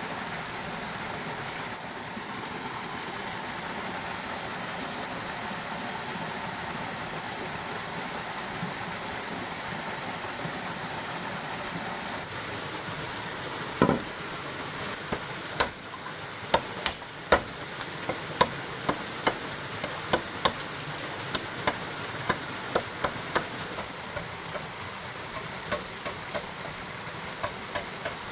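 Steady rush of a forest stream. About halfway through comes one loud knock, then a run of sharp, light knocks, one or two a second, as cut green bamboo tubes are laid down and struck against a bamboo floor.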